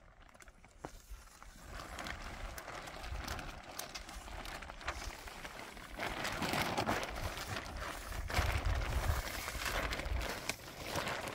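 Large clear plastic sheeting rustling and crinkling as it is handled and brushed clean of dirt, louder in the second half.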